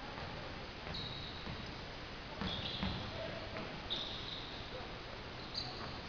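Basketball shoes squeaking on the gym floor in several short, high chirps as players cut and stop, with a few dull thuds of the ball bouncing and of footfalls in between.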